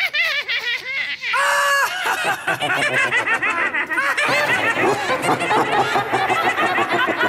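Cartoonish laughter from the puppet characters: a quick run of short laughs, a drawn-out note about a second and a half in, then several voices laughing together.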